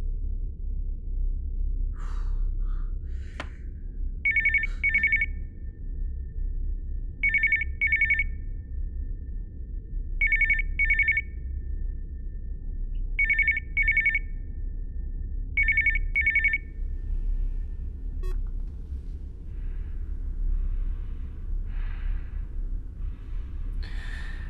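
Electronic telephone ringing in double rings, five pairs spaced about three seconds apart, over a low steady rumble.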